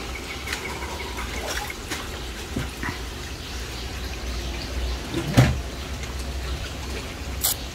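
Swimming-pool water sloshing and dripping in small splashes over a steady low rumble, with a louder thump about five seconds in.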